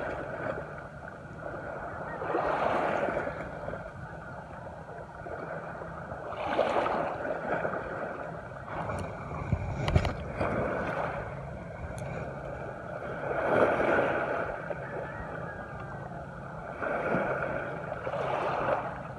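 Small waves washing onto the shore, each wash swelling and fading about every three to four seconds. A single sharp click about halfway through.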